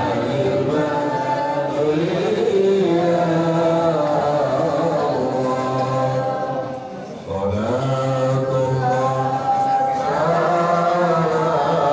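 Group of voices chanting an Islamic devotional song in unison, with long drawn-out melodic notes and a short break about seven seconds in.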